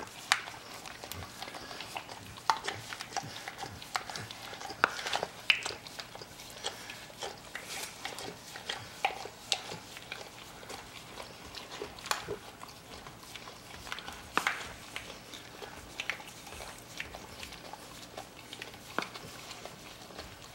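Two dogs licking food off a plastic board: a steady, irregular run of wet tongue smacks and clicks, several a second.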